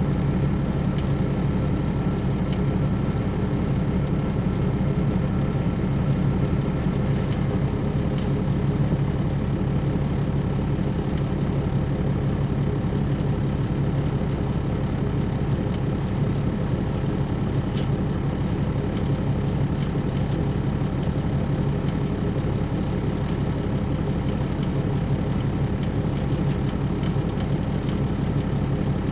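Caterpillar C13 ACERT diesel engine of a 2007 MCI D4500CL coach running steadily, heard from inside the bus as an even, low hum.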